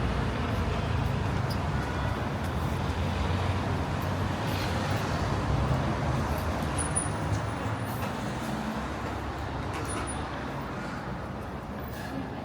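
Street traffic noise: a steady rumble of passing cars and buses, easing off gradually near the end.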